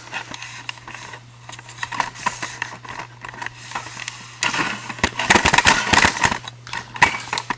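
Rustling with a dense run of small clicks and knocks from a handheld camera being moved and lowered, busiest in the second half, over a steady low hum.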